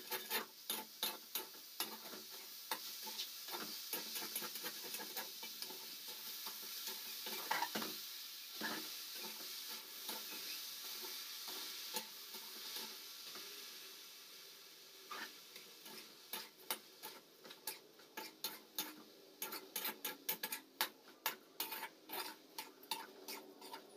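Steel spoon stirring and scraping crumbled milk solids in a metal kadhai over a gas flame, the spoon clicking against the pan over a soft sizzle. The clicks come quicker and more regular in the last third.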